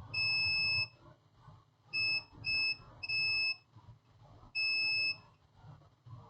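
Digital multimeter's continuity buzzer beeping five times in uneven bursts, short and longer, as the probes make and break contact across a capacitor; the beep means continuity to ground, the sign that the capacitor is shorted.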